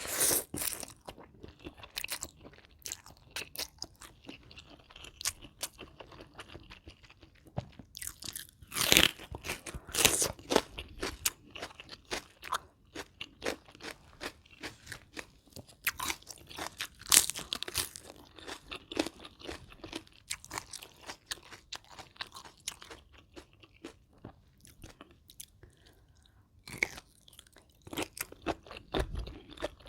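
Close-miked crunching and chewing of crisp food, a dense run of crackling bites that comes in bursts, loudest around a third of the way in and again past the middle, with a quieter lull near the end.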